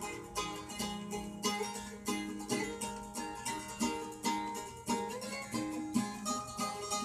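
Guitar being picked: a run of plucked notes over a ringing low note, with one note bent in pitch about five seconds in.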